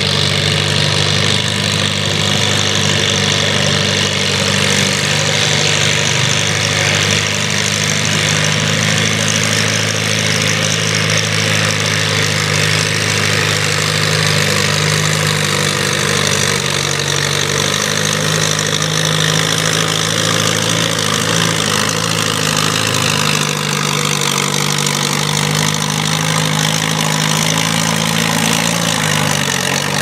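Case farm tractor's engine working steadily under the heavy load of a weight-transfer sled during a tractor pull, holding an even pitch with a slight dip about two-thirds of the way through.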